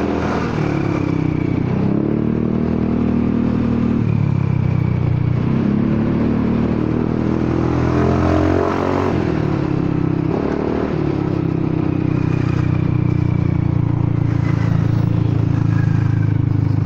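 Honda Forza 300 scooter's single-cylinder engine through its exhaust, revving up and easing off several times, then running fairly steady in the last few seconds. The rider suspects the exhaust's baffle plug has worked loose and is moving about inside, and the title calls the exhaust broken and howling.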